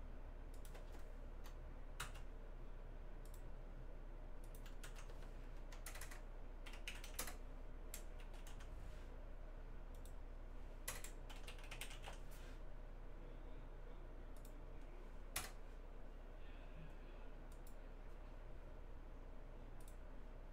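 Faint, irregular clicking of a computer keyboard being typed on, in scattered runs, over a low steady hum.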